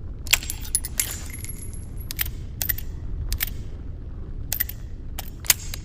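Taurus Judge revolver being handled: about ten sharp metallic clicks and clacks at uneven intervals, the loudest near the start and about five and a half seconds in, with a short high metallic ring after a click about a second in.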